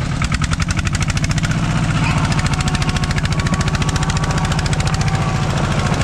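A vehicle engine running with a rapid, even thumping beat that swells during the first second and then holds steady.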